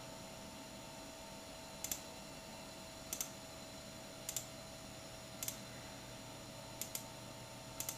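Computer mouse clicking: about six sharp clicks, each a quick press-and-release pair, roughly one a second, as points of lines are placed in a CAD drawing. A faint steady hum lies beneath.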